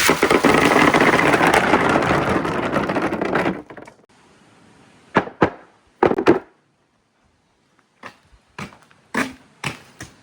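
A batch of marbles rolling and rattling down a marble run track together for about three and a half seconds, then a string of separate clacks and knocks as single marbles drop and hit the track and each other.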